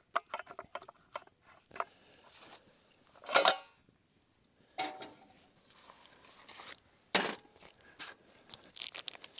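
A frying pan knocks and clatters as it is handled and set down on the grate of a portable gas grill, amid crinkling of plastic bacon packaging and scattered small clicks and taps. Two sharper knocks stand out, about three and a half and seven seconds in.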